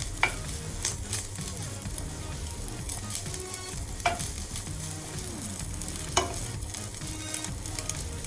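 Chicken, sausage and garlic sizzling as they fry in oil in a pan while being stirred, with a utensil clicking sharply against the pan three times.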